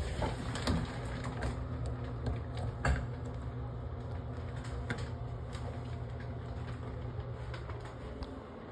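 Scattered clicks and knocks as tools and faucet parts are handled around a plastic bucket in a bathtub, the loudest near the start and about three seconds in, over a steady low hum that stops near the end.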